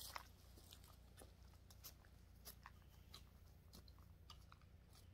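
Near silence with faint, irregular crunching footsteps in dry grass and leaves.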